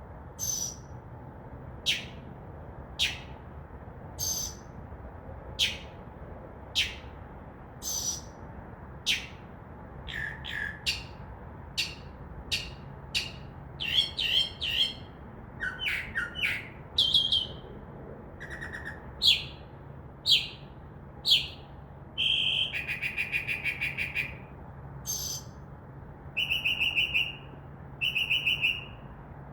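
Northern mockingbird singing at night, a male advertising for a mate. It opens with a run of single sharp downward-swept notes about one a second. It then moves through a changing string of mimicked phrases and ends on rapid pulsed trills, over a faint steady low hum.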